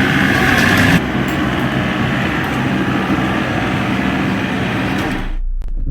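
A vehicle on the move: steady engine hum under loud road and wind noise. It changes abruptly about a second in and cuts off suddenly near the end.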